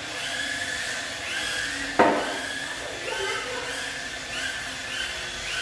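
Small electric motor of a radio-controlled toy car whining in short bursts, the pitch rising and falling with each burst as the throttle is worked. A single sharp knock about two seconds in is the loudest sound.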